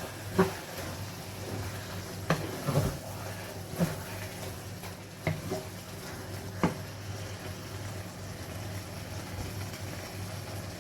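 A pot of spinach stew with sweet pepper sizzling on the stove while it is stirred, with a spoon knocking against the pot about six times in the first seven seconds.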